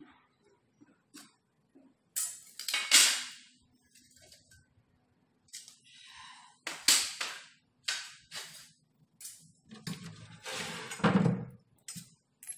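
Cut granite slab pieces knocking and scraping against each other and the wooden crate as they are shifted by hand: several sharp knocks with short scrapes, the loudest about three seconds in and again near the end.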